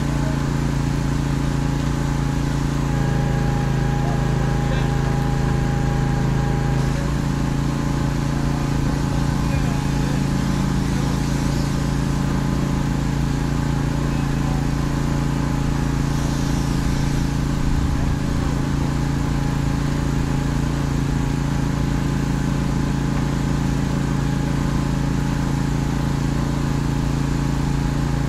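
An engine running steadily with a constant low hum, under the hiss of a pressure washer spraying a semi truck's wheels and tyres.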